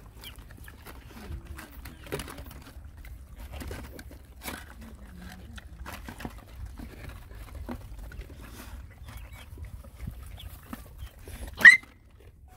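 Several dogs eating together from one shared bowl: wet lapping, chewing and scattered clicks as their snouts work the food. Near the end there is one brief, loud, high-pitched animal cry.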